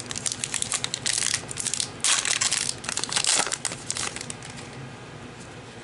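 Plastic wrapper of a trading-card pack crinkling and crackling as it is torn open by hand, dying down about four and a half seconds in.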